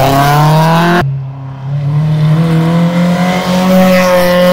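Peugeot 206 rally car's engine accelerating hard, its pitch rising. About a second in, the sound cuts to a Peugeot 205 rally car's engine pulling under load, its pitch climbing slowly and steadily.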